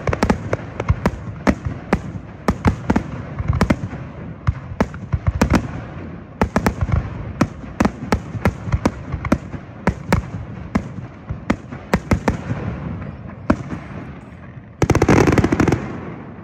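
Fireworks display heard from across a wide river: a rapid run of shell bursts and bangs, several a second, thinning out near the end. About fifteen seconds in there is a loud rush of noise lasting about a second.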